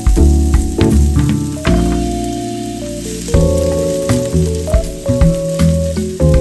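Minced garlic sizzling in hot oil in a stainless steel wok, stirred with a silicone spatula, over background music with a steady beat.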